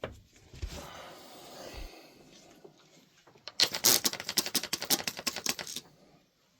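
Freshly sharpened bevel-edge hair shears, one blade corrugated, snipping quickly through paper towel: a fast run of sharp clicks, about six a second, lasting a couple of seconds past the middle, after some soft rustling near the start.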